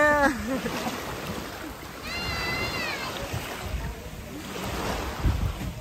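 Two high, drawn-out wordless calls: a short one right at the start and a longer, wavering one about two seconds in. Both sit over a steady low rush of wind and surf.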